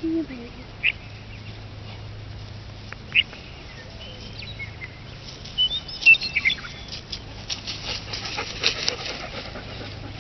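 Birds calling: a few short calls spaced a couple of seconds apart, then a busier run of chirps and clicks in the second half, over a steady low hum.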